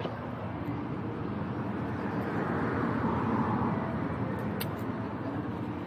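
City street ambience: a steady hum of traffic and street noise that swells around the middle, as if a vehicle passes, with a couple of short sharp clicks near the end.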